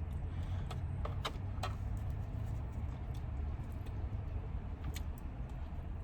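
Steady low hum of a car running, heard from inside the cabin, with a few short clicks and smacks from eating about a second in and again near the end.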